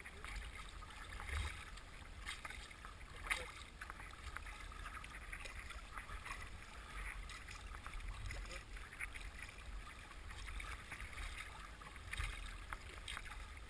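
Water rushing and splashing along the hull of a small paddled boat moving downstream, with a few louder splashes about a second in, at about three seconds and near the end. A low rumble runs underneath.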